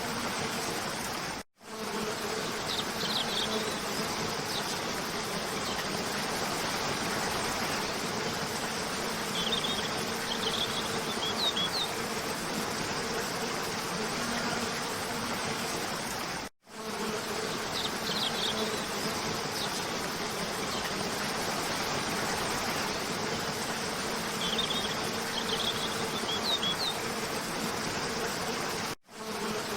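Cascade waterfall rushing steadily under a faint low hum, with a few short, high bird chirps in small clusters. The sound cuts out for an instant three times and the same chirps come round again, as a loop restarting.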